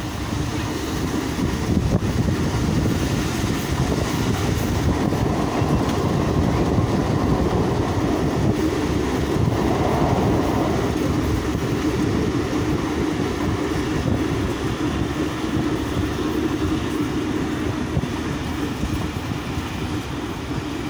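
Passenger train running steadily, heard from beside an open coach window: a continuous rumble of the wheels on the rails.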